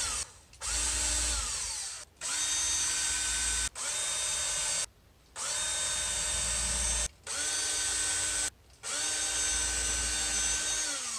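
Cordless drill running a small bit into pine frame joints to make pilot holes, in about six short runs of one to two seconds each with brief pauses between. The motor's whine winds down in pitch as the trigger is released at the end of several runs.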